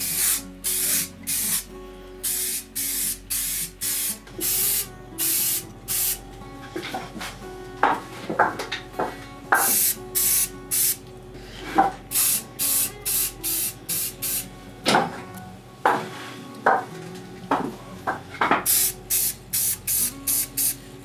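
Aerosol spray paint cans hissing in short bursts one after another, about one a second, as primer and paint are sprayed onto small metal parts, with a few sharp clicks between the bursts.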